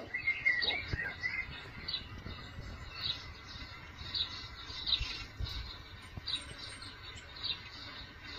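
Small birds chirping, faint short high chirps repeating about twice a second, with a brief warbling trill in the first second.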